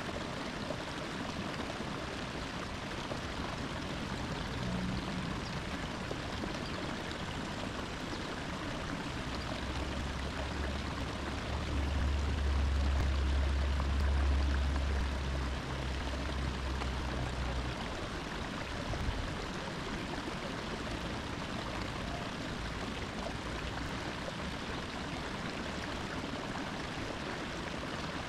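Steady rush of flowing water. A deep low rumble swells in about a third of the way through and fades out about two-thirds through.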